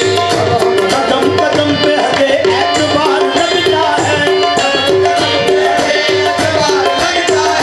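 Qawwali instrumental passage: harmoniums repeating a short melodic phrase over fast tabla drumming.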